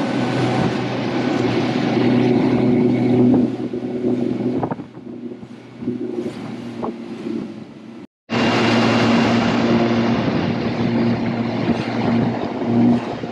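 Boat running at speed under an Evoy 300+ electric outboard prototype: rushing wind and water from the wake, with a steady low hum underneath. The sound drops out briefly a little after eight seconds in, then picks up again.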